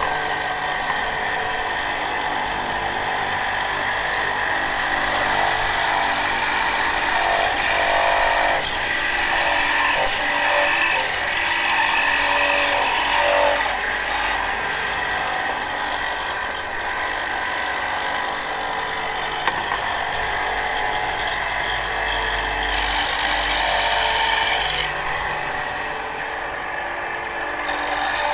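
EzyLif VBS8 350 W bench band saw running, its blade cutting through a wooden board as it is fed by hand: a steady motor and blade whine with the hiss of the cut. The cutting hiss drops away for a couple of seconds near the end, then picks up again.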